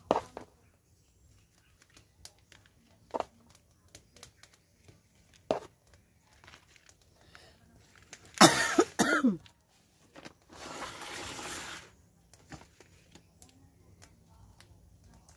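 A person coughs once, loudly, about eight seconds in, the pitch dropping through the cough. Around it come scattered light knocks and rustles of hands working pots and potting soil, and a hiss of noise lasting about a second and a half just after the cough.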